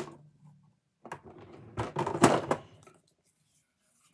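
Rummaging among makeup things: about two seconds of rustling and clattering, with a couple of sharp knocks about two seconds in.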